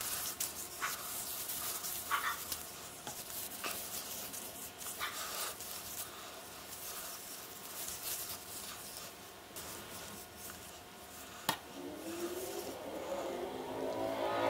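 Blue nitrile-gloved hands rubbing a wet finish into a hickory axe handle: soft, irregular rubbing and handling noises with a few light clicks. Near the end a wavering, squeaky whine rises and falls.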